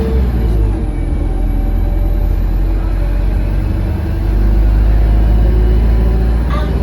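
Alexander Dennis Enviro200 single-deck bus engine running under way, a loud low drone heard from inside the passenger cabin, swelling a little about four seconds in.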